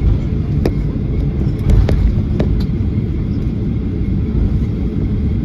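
Inside the cabin of a Boeing 737-800 taxiing after landing: a steady low rumble from the CFM56 engines at idle and the wheels rolling on the taxiway. A few light clicks and knocks sound in the cabin about a second in and again around two seconds in.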